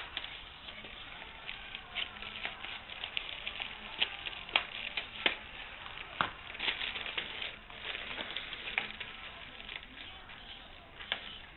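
Packaging being opened by hand: rustling and crackling of wrapping, with scattered sharp clicks and snaps, the strongest right at the start.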